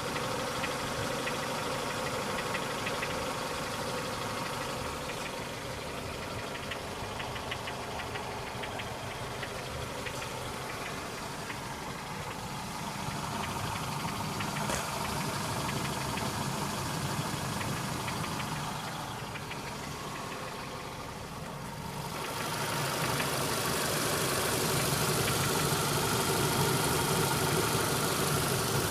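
Vehicle engine running with a repeated knock whose cause the owner cannot make out. About 22 seconds in, it gets louder, with more hiss.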